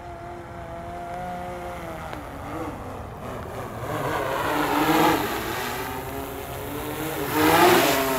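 DJI Matrice 200-series quadcopter's propellers whining as it flies fast straight back toward the pilot, growing louder as it closes in. The pitch of the tones rises and falls as the motors change speed.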